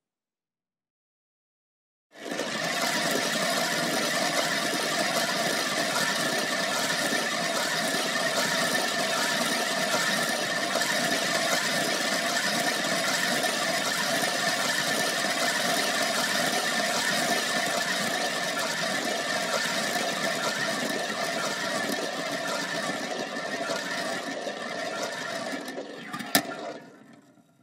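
A marble turning and rolling, a steady continuous rolling noise that starts about two seconds in and goes on without a break. Near the end there is a single sharp click, and then the rolling dies away.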